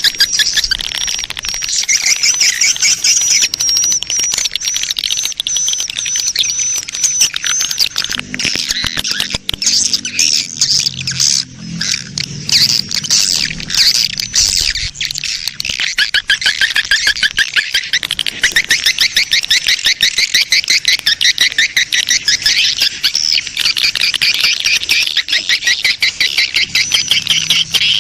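Swiftlet lure recording of a colony of edible-nest swiftlets in courtship: dense, rapid, continuous chirping and twittering, used to attract swiftlets to a nesting house. A weaker low sound sits under it from about 8 to 15 seconds in.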